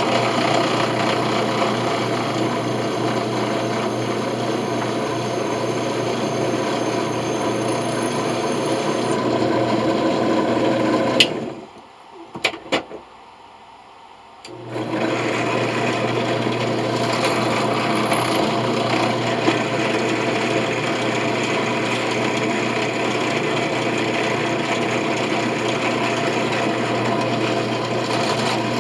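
Electric drill running steadily as it drills into a brass coin. It stops with a click about eleven seconds in, stays off for about three seconds with a couple of small clicks, then starts up again and runs on.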